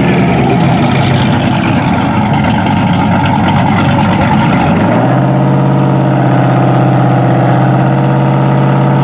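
Two V8 street cars, a Cadillac CTS-V and a 426-stroker Jeep Grand Cherokee SRT8, running side by side on the line. At first the engine note is rough and lumpy. About five seconds in it rises a little and holds one steady raised rev, the revs held for the launch.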